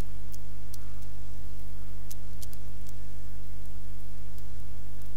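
Steady electrical mains hum with buzzing overtones, picked up in the recording's audio, with a few faint, scattered ticks.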